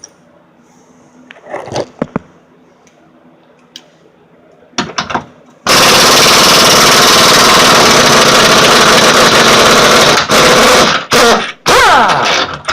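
Impact wrench hammering on a 24 mm lower control arm bolt: a few light knocks first, then one loud burst of about four seconds and several short bursts near the end.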